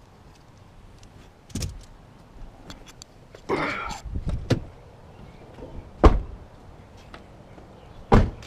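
A few separate thuds and knocks, the loudest two near the middle and at the end, with a short scraping sound a few seconds in and scattered small clicks.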